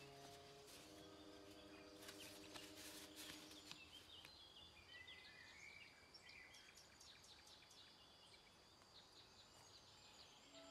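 Very faint garden ambience with small birds chirping. Soft held music notes fade out about four seconds in. Light paper rustles sound around two to three seconds in, as a letter is unfolded.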